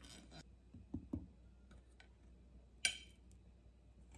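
A few light clicks and knocks of kitchenware being handled: two dull knocks about a second in, a faint tick at about two seconds, and one sharp click near the end.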